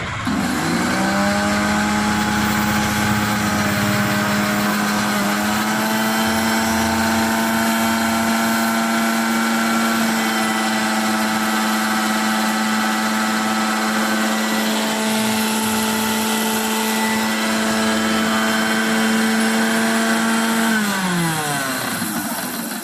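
Mixer grinder's motor switched on, spinning up fast to a steady high-pitched whine, then switched off near the end and winding down with falling pitch. This is a test run after its worn carbon brushes were replaced to cure a loss of speed.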